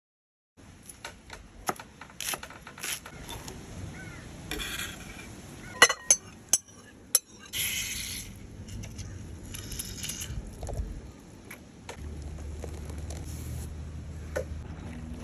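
Kitchen handling sounds: scattered clicks and knocks of utensils and dishes, with a few short hissing bursts. A low steady hum sets in about twelve seconds in.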